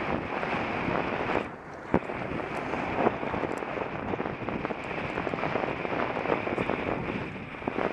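Wind buffeting the microphone of a camera on a bicycle ridden at about 25 mph: a steady rushing noise, with a couple of sharp knocks about two and three seconds in.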